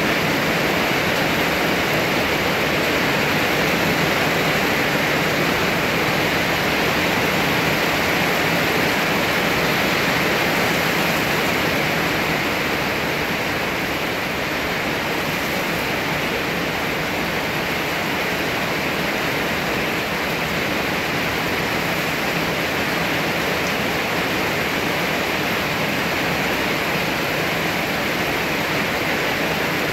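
Heavy rain pouring steadily onto grass and trees: a constant, even hiss of a downpour.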